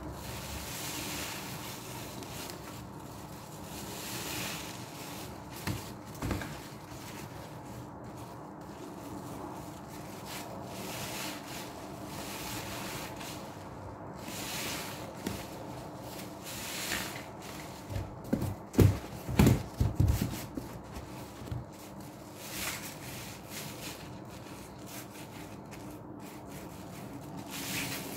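Large foam sponges soaked in laundry-liquid suds being squeezed and kneaded by hand: a steady wet squishing of lather, with a run of louder squelches and thumps about two-thirds of the way through.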